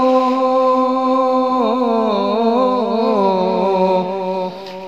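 A man singing a naat, holding one long note with melodic ornaments that slides lower, with a short break near the end.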